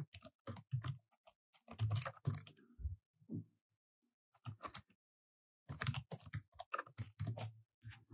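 Typing on a Samsung Chromebook's laptop keyboard: quick runs of key clicks, a pause of about two seconds in the middle with only a few keystrokes, then a second run.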